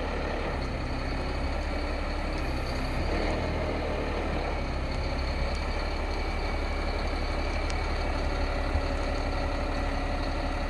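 Caterpillar C7 diesel engine idling steadily with the PTO engaged, driving the crane's hydraulic pump.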